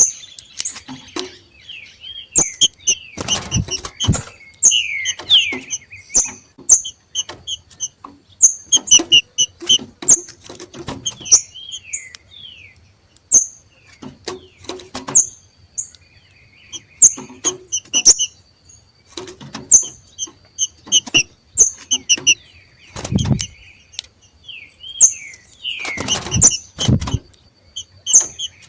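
Two green-winged saltators (trinca-ferro) giving their 'macheando' calls: short, sharp chirping notes repeated in quick clusters, with a few downward-sliding notes mixed in, the call birds give as they come into breeding condition. Brief rustles and knocks from the birds moving about come between the calls.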